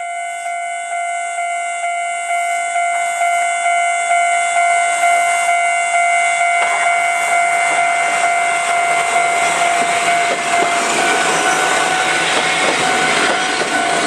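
Railway level-crossing alarm ringing steadily, pulsing about twice a second, while a Kominato Railway KiHa 200 diesel railcar approaches and passes. The railcar's engine and wheel noise grows over the alarm from about halfway through.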